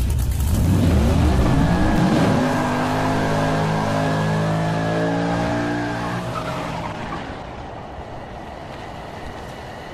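Car engine revving, its pitch rising and then held, with tyres squealing in a smoky burnout; the sound fades away over the last few seconds.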